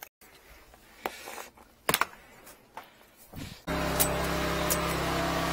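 A few light clicks and knocks of tools being handled. Then, about two-thirds of the way in, the 13-horsepower high-pressure drain jetter's engine cuts in abruptly, running steadily while the jetting hose works in the sewer pit.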